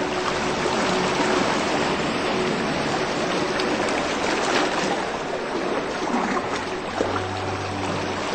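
Steady rushing of running stream water. A low steady hum comes in underneath about seven seconds in.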